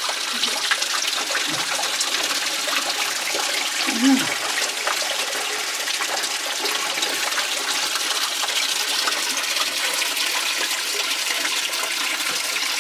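Steady rush of spring water running and falling through a mine tunnel, with a short low sound about four seconds in.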